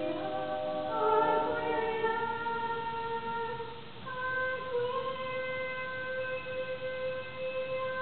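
A woman singing a cappella, a line of a barbershop tag: a short phrase that moves up in pitch, then about halfway through one long high note held steadily.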